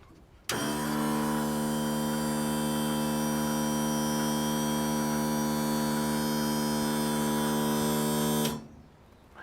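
Solar-powered onboard air compressor switched on about half a second in, running with a steady, even electric buzz, then switched off about a second before the end.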